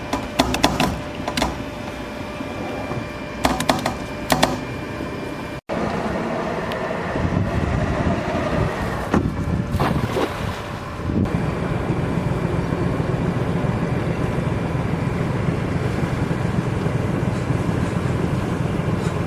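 Scattered knocks and clatter at first, then, after a cut, a small boat's motor running steadily with a low hum.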